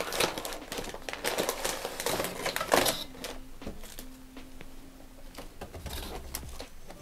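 Plastic packaging rustling and crinkling while a cardboard box and its contents are handled, with scattered light clicks and taps; busiest in the first three seconds, then quieter.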